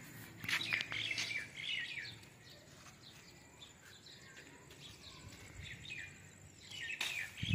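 Faint, scattered chirps of small birds, with a few light clicks and rustles in the first second or two.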